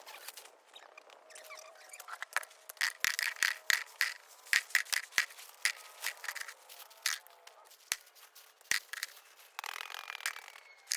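A quick run of scrapes and sharp clicks, thickest in the middle few seconds, typical of hands or a tool working through stony soil.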